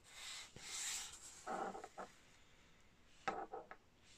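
Faint rubbing and sliding as a paper card and a pair of scissors are pushed about on a tabletop by hand, with a few brief soft handling sounds.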